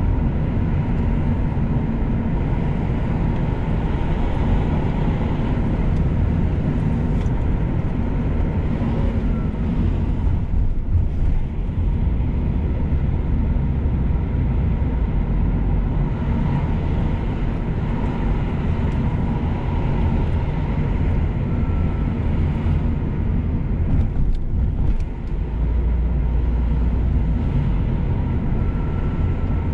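Steady rumble of a car driving on the road: engine and tyre noise, heaviest in the low end, dipping briefly twice.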